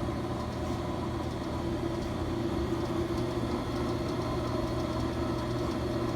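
Ammco disc and drum brake lathe running steadily with its automatic feed engaged on high speed: an even electric motor and gear drive hum with a constant whine.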